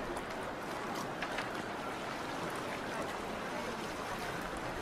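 Steady wash of water-like ambience, as of water lapping at boats, with a few faint light clicks.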